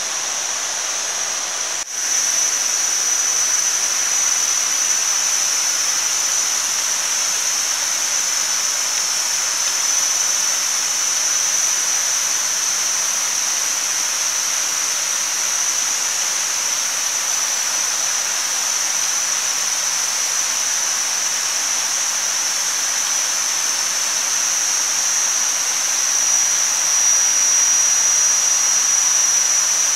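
Meat and an egg sizzling on a fire-heated stone slab: a steady hiss, with a steady high-pitched whine running through it. The sound dips briefly about two seconds in.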